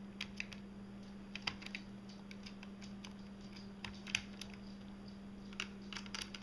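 Light, scattered plastic clicks and taps from handling and prying at the underside of an Acer Aspire One D257 netbook's case, in small clusters, over a steady low hum.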